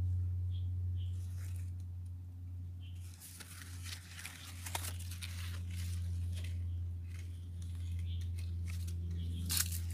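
Crinkly rustling and scratching of persimmon leaves and fruit being handled close to the microphone, in many short crackles from about three seconds in, over a steady low hum.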